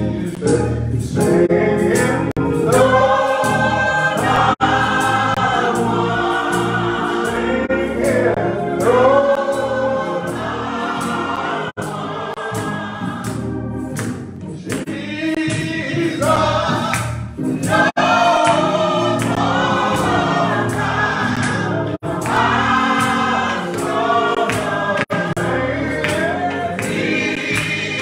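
Church congregation singing a hymn together from hymnals, led by a man singing into a microphone.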